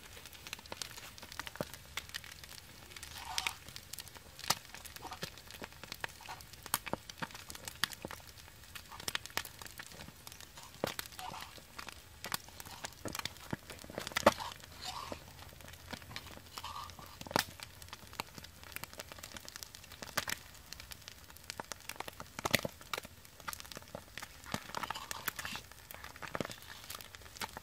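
Irregular sharp crackles and clicks throughout: a small wood fire crackling under a clay pan, with bamboo chopsticks tapping and scraping against the pan while lifting out fried eggs.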